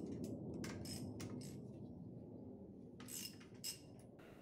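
Socket wrench clinking against the connecting-rod cap nuts in an Alfa Romeo 1.6 twin-cam engine block: light, faint metallic clinks in two scattered clusters, about a second in and again about three seconds in.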